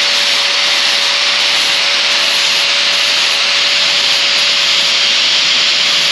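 Angle grinder with a 40-grit sanding pad grinding the bevel of a curved mulching mower blade in light passes: a loud, steady abrasive hiss over the motor's even whine.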